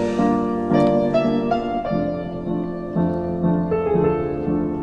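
Background piano music: slow, sustained notes and chords.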